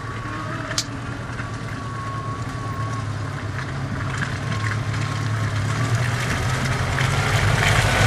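Lada Niva engine running at a slow crawl as the 4x4 approaches, growing steadily louder. Near the end its tyres crackle and click over mud and twigs as it passes close by.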